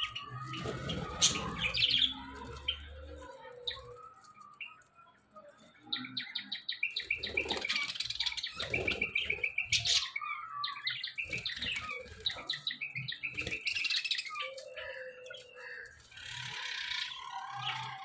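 A flock of budgerigars chirping and chattering while they feed, in quick runs of short high chirps that grow busiest from about six seconds in. A low rumble sits under the first few seconds.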